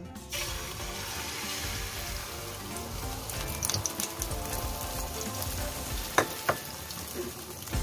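Beaten egg poured into hot oil in a non-stick wok, sizzling and frying; the sizzle starts suddenly just after the start and then holds steady. Two sharp taps sound about six seconds in.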